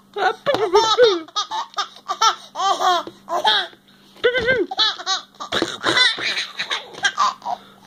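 Baby laughing in a string of short, high-pitched bursts of giggles and belly laughs, with a brief pause about four seconds in.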